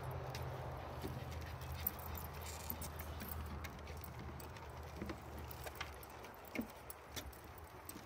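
Footsteps on a wooden boardwalk: dogs' paws and claws and a person's steps knocking and clicking irregularly on the boards. A low steady hum sits under them and fades about five seconds in.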